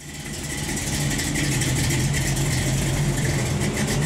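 A car engine idling steadily, fading in over about the first second.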